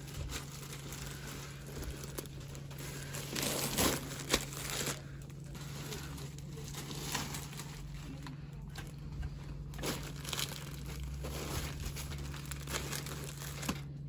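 Plastic film wrapping on large toilet-paper multipacks crinkling and rustling as the packs are lifted and loaded into a shopping cart, louder for a moment about four seconds in. A steady low hum lies underneath.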